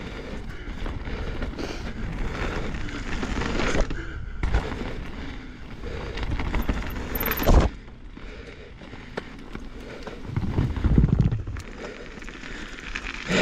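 Full-suspension mountain bike (2023 Norco Fluid on Maxxis Assegai tyres) riding fast down a dirt singletrack: tyres rolling over dirt with wind rumble on the microphone, broken by rattles and knocks from the bike over bumps. The loudest is a hard knock about seven and a half seconds in.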